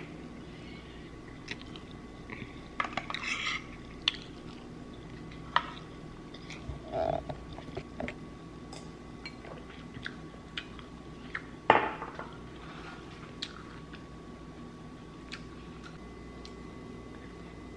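Close-up eating sounds: chewing of fried rice, light clicks of a metal fork against the bowl, and swallows of juice from a glass, with one louder knock about twelve seconds in.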